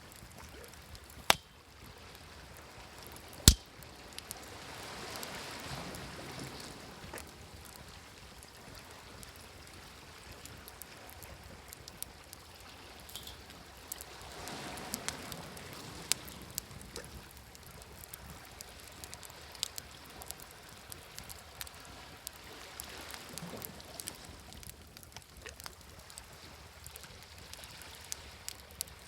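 Wood fire crackling with many small sharp pops, two loud ones in the first few seconds, over waves washing in on a shore about every eight or nine seconds.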